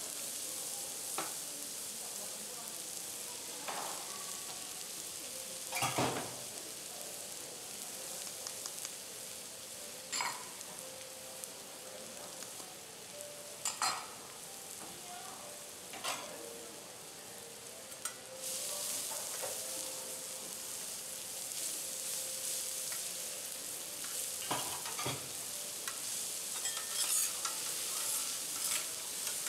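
Chopped garlic sizzling steadily in hot oil on a steel teppanyaki griddle, with a few sharp metallic knocks from the chef's spatula against the griddle.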